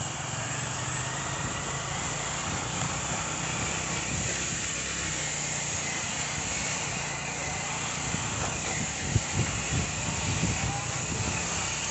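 Motorcycle engine running steadily on the move, under a wide rush of wind and road noise. A few short low thumps come about three-quarters of the way through.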